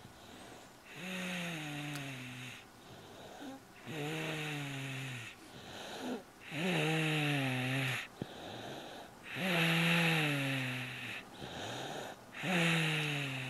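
Snoring in sleep: five long, voiced snores about every three seconds, each sliding down in pitch, with quieter breaths in between.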